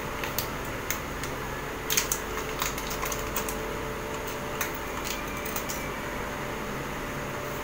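Scattered light clicks and taps of small objects being handled, over a steady low room hum.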